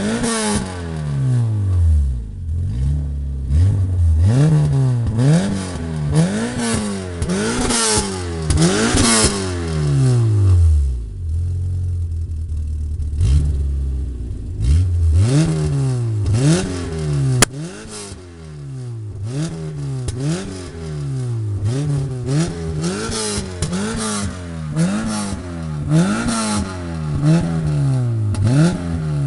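Peugeot 106 Rallye's 1.6-litre eight-valve four-cylinder engine revved repeatedly through a Sebring rear silencer with twin tailpipes: quick throttle blips rising and falling about once a second, with exhaust pops and crackles as the revs drop. It settles to idle briefly about halfway, and one sharp crack comes soon after.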